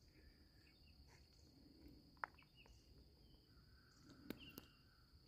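Near silence: faint outdoor background with a steady thin high-pitched whine and a few faint short chirps, and one small click about two seconds in.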